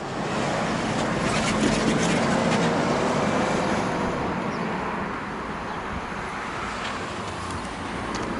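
A road vehicle driving past, its engine and tyre noise swelling to a peak about two seconds in and then slowly fading.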